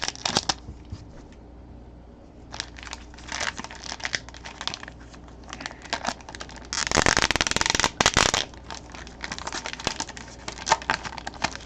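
Packaging crinkling and crackling as it is unwrapped by hand to get at a card, with a denser burst of tearing about seven seconds in that lasts around a second and a half.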